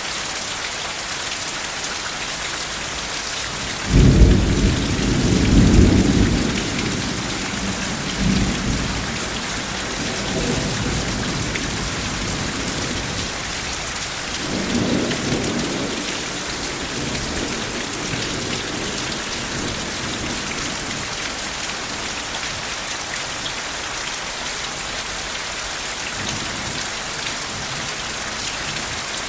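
Steady heavy rain with a clap of thunder about four seconds in that rolls on as fading low rumbles for several more seconds, with another softer roll near the middle.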